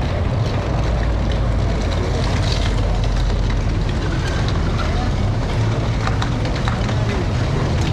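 City street traffic: a steady low rumble of vehicle engines, with scattered clicks and faint voices in the background.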